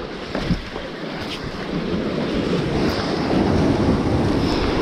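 Sea swell washing in over rock blocks at the water's edge, building to a surge about halfway through, with wind buffeting the microphone.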